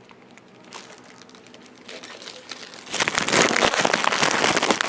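Plastic food wrapper crinkling as it is handled, loud and close, starting about three seconds in after a few faint clicks.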